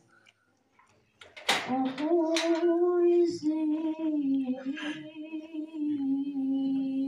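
After a moment of near silence, a sharp noisy burst and then a young singer's voice through a loudspeaker holds long, slowly wavering wordless notes, the drawn-out opening of a sung naat.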